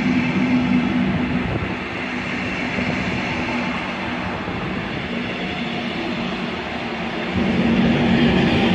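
Red double-deck regional train passing through the station at speed without stopping, a steady rumble of wheels on rail with a low hum. It gets louder again near the end as the locomotive at the rear goes by.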